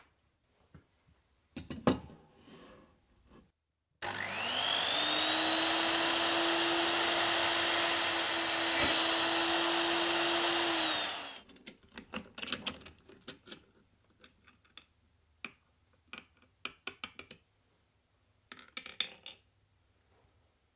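A drill press motor spins up with a rising whine, then runs steadily for about seven seconds while drilling through a metal hex nut, and winds down. Scattered light clicks and taps of small metal parts being handled follow.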